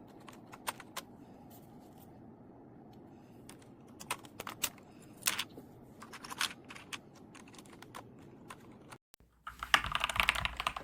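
Typing on a Keychron C2 mechanical keyboard with Keychron Brown switches. Scattered keystrokes give way, after a brief drop-out near the end, to faster and louder typing.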